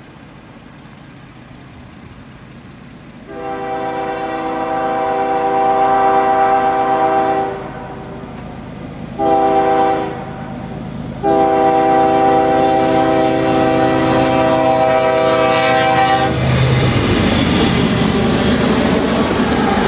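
Diesel freight locomotive air horn sounding for a grade crossing: a long blast, a short blast, then another long blast. About sixteen seconds in, the lead BNSF locomotives reach the crossing and pass close by, with loud engine rumble and wheel noise.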